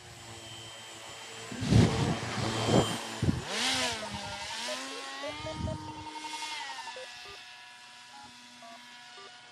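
RC paramotor's propeller motor whining at full power on takeoff, with loud rushing bursts in the first few seconds. The pitch rises about four seconds in and drops again around seven seconds, and the sound fades as the model climbs away.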